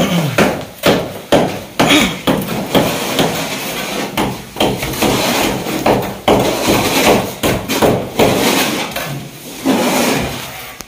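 Plastering trowels knocking and scraping against mortar pans and a concrete-block wall as several workers render it with cement plaster: irregular sharp knocks, about one or two a second, over a rough scraping.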